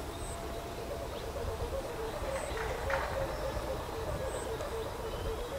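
Kite hummer (Thai sanu, a bow-shaped string noise maker on the kite) droning in the wind with a steady tone that pulses several times a second, over low wind rumble on the microphone.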